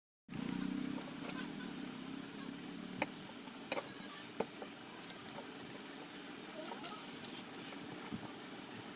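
Hands smoothing cotton fabric and laying a newspaper pattern on a table: soft rustling of cloth and paper with a few sharp taps a few seconds in. A low hum sounds in the first two seconds.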